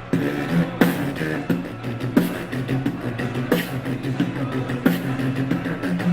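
Solo beatboxing in a dubstep-style groove: a heavy kick sound about every second and a third, quick hi-hat-like clicks between, and a sustained hummed bass line underneath.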